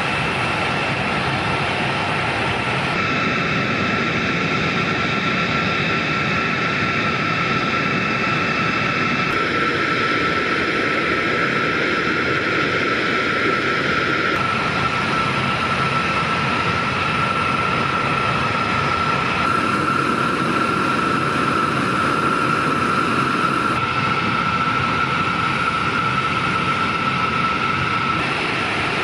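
Military jet aircraft engines running with a steady rush and a steady high whine, the sound shifting abruptly several times as shots change.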